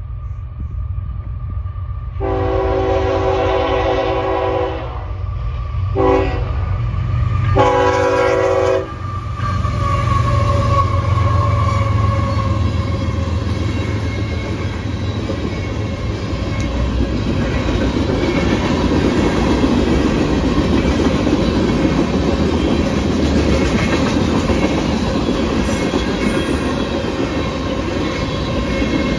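Locomotive horn sounding a long blast, a short blast and another long blast. Then the train runs past, its wheels clattering steadily over the rails and growing louder.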